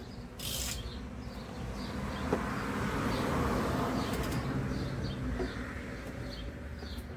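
Birds chirping repeatedly in short, faint calls over a broad rushing noise that swells and then fades over several seconds.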